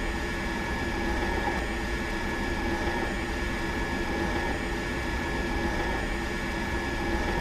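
Electric water pump motor running steadily, a constant whine over a low hum and hiss, just after spinning up to speed.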